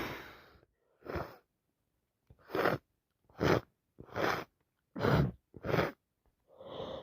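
A woman with a heavy, runny head cold: the end of a sneeze fades out at the start, then about seven short noisy sniffles and breaths through a snotty nose, a second or less apart.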